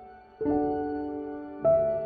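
Soft background music of slow, held chords, with a new chord coming in about half a second in and another near the end.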